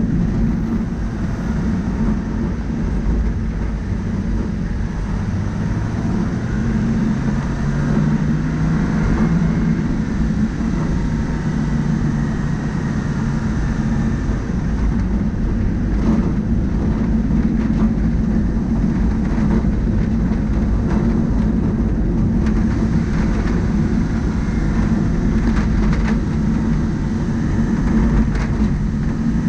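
A vehicle driving on a dirt road: the engine runs with a steady rumble of tyres over dirt and gravel. The engine note rises for a few seconds about a third of the way in.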